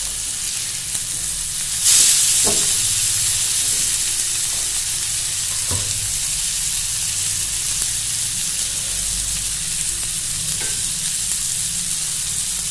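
King fish steaks frying in hot oil on a tawa with a steady sizzle, which surges sharply louder about two seconds in as a steak is flipped onto its uncooked side and then settles. A few light spatula knocks sound now and then.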